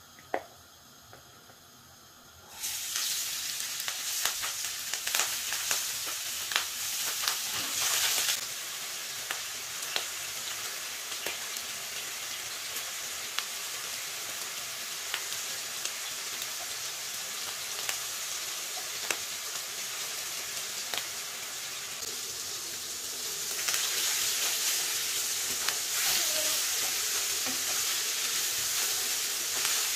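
Hilsa steaks frying in hot mustard oil in a pan: after a single sharp knock right at the start, the sizzle begins suddenly about two and a half seconds in as the fish goes into the oil, full of small crackles and pops. It eases a little after about eight seconds and grows louder again near the end.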